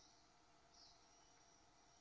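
Near silence: faint outdoor ambience, with a faint high-pitched chirp about a second in, followed by a thin, steady high tone.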